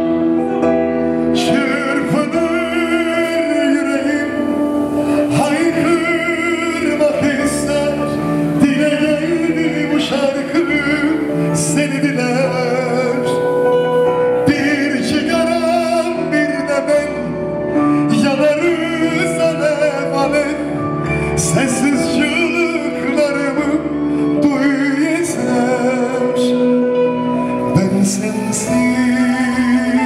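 Man singing a slow Turkish song live into a microphone with vibrato, backed by a band that includes a bağlama (long-necked lute).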